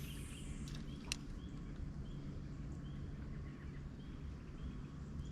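A bird calling with a short high chirp repeated about every two-thirds of a second over a steady low hum, with one sharp click about a second in.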